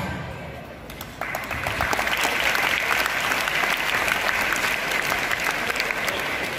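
Dance music dies away, then from about a second in an audience claps and applauds steadily.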